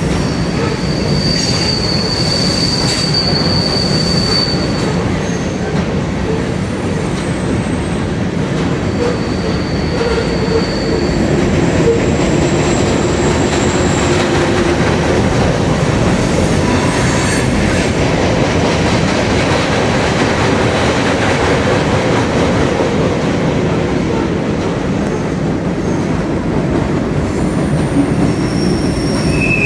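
Freight train tank cars rolling across a steel railroad trestle: a steady rumble of wheels on the bridge, with several high-pitched wheel squeals that come and go, the first about a second in.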